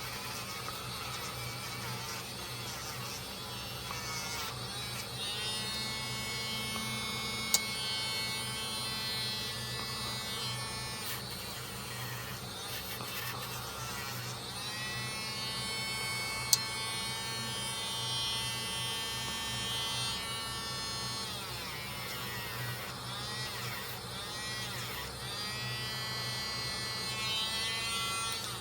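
Small handheld electric motor buzzing steadily, its pitch wavering up and down, with two sharp clicks about seven and sixteen seconds in.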